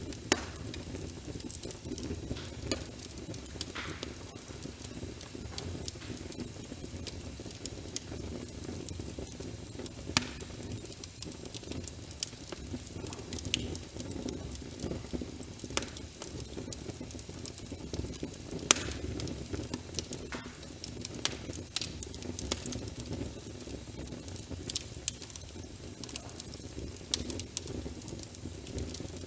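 Wood fire crackling in a fireplace, with irregular sharp pops, a few much louder than the rest, over a steady low rush of rain.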